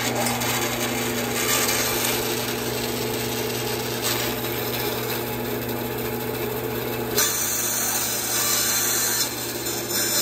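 Bandsaw running with its blade cutting into a square plywood blank fed on a circle-cutting jig: a steady motor hum under a continuous hiss of the blade in the wood, which turns brighter and hissier about seven seconds in.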